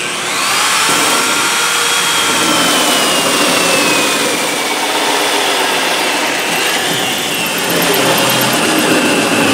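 Corded electric drill spinning a hole saw through a car's sheet-metal door skin: a steady motor whine over the grinding of the saw teeth on the metal. The whine sags a little in pitch a few seconds in, then recovers.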